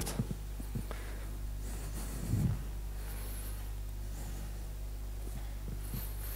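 Quiet room tone in a hall with a steady low electrical hum, a few faint ticks, and one brief low sound about two and a half seconds in.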